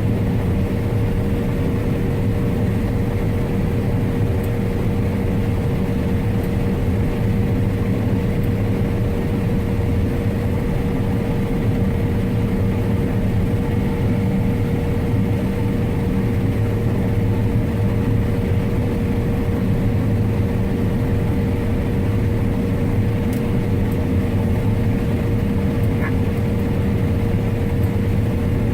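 Combine harvester running steadily under load while harvesting corn: a constant low engine and machinery rumble with a steady whine held at one pitch.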